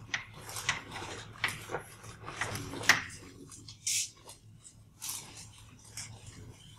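Chalk tapping and scraping on a chalkboard as a short formula is written: a quick run of sharp taps over the first three seconds, then a couple of brief scratchy strokes.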